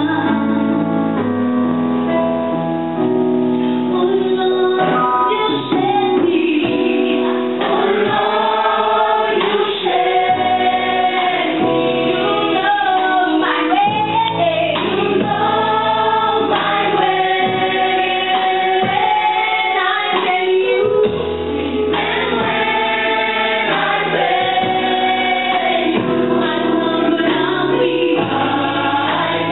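Mixed church choir singing a gospel hymn, several voices in harmony, continuously.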